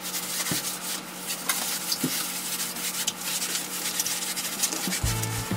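Fast, dense scratching and rubbing of a hand on the floor, used to tease a cat into pouncing.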